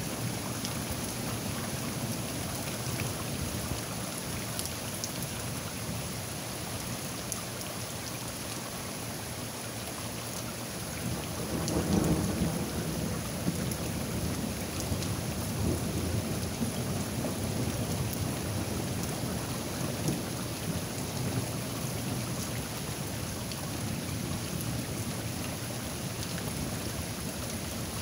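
Heavy rain falling steadily, with a roll of thunder near the middle that rumbles low and fades over several seconds.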